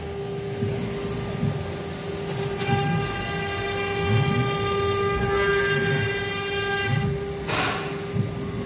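Water-cooled 2.2 kW CNC router spindle running at speed with a steady high whine while its 3 mm bit mills a 3 mm aluminium composite panel. A second set of higher tones joins about two and a half seconds in, and a short rushing noise comes near the end.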